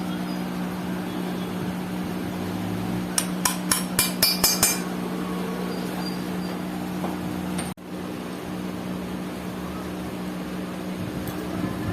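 A steady electric machine hum with a quick run of about eight sharp metallic clinks, like metal tapping on metal, around three to five seconds in. The sound drops out for an instant about two-thirds of the way through.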